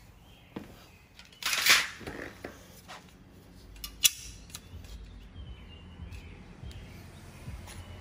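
Metal-backed brake pad being handled and slid into a Brembo six-piston brake caliper. There is a short scrape about a second and a half in, then a sharp click near four seconds, with lighter clicks and taps around them.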